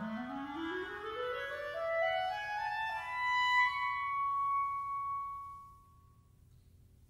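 Woodwinds of a wind ensemble playing a slow line that climbs step by step for about three seconds, then settles on a long high flute note that fades away about six seconds in.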